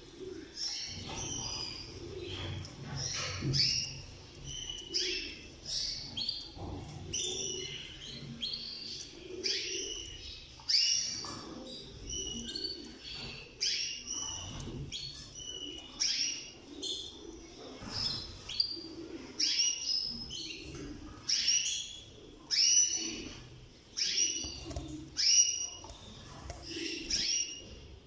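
Canaries chirping: short, high calls repeated about once or twice a second, over a faint low murmur.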